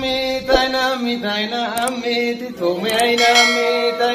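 Chant-like singing voice holding long notes at a steady pitch, with short breaks between phrases. There is a brief knock about half a second in.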